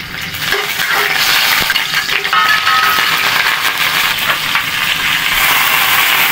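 Chopped garlic and sliced red onion sizzling in hot oil in a pan: a steady, loud frying hiss.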